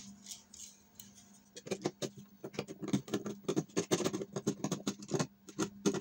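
Utility knife blade scraping old wood glue off the spruce top of a classical guitar where the bridge sits, clearing the residue before the bridge is reglued. It starts about a second and a half in as rapid, short scraping strokes, several a second.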